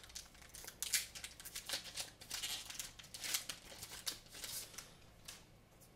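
Foil booster-pack wrapper crinkling and tearing as it is opened by hand, with irregular short rustles of handling that die down near the end.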